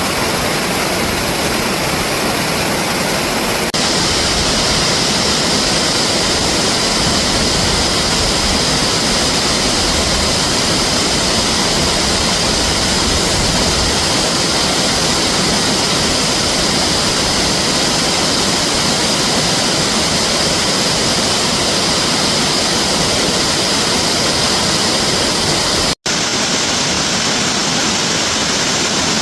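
Recording of rushing water played in reverse: a loud, steady, even rush. Its tone changes suddenly about four seconds in, and the sound cuts out for an instant near the end, as at an edit.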